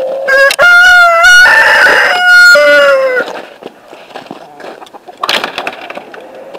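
A rooster crows once, a loud cock-a-doodle-doo of several notes lasting about three seconds and ending on a drawn-out falling note. A short scuffing noise follows about five seconds in.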